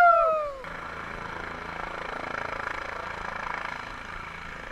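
A loud falling-pitched yell cuts off about half a second in. A steady engine drone with a low hum follows.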